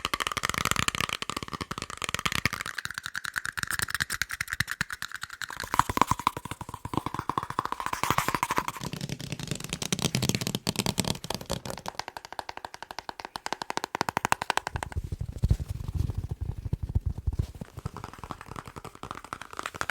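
Fast ASMR tapping: fingers drum rapidly on a series of different objects, many taps a second. The tone of the taps changes every few seconds as one object gives way to the next, some bright and clicky, some dull and low.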